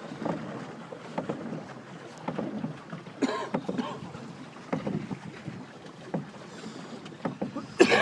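Pedal boat being pedalled on a river: its paddle wheel churning and splashing the water in uneven pulses.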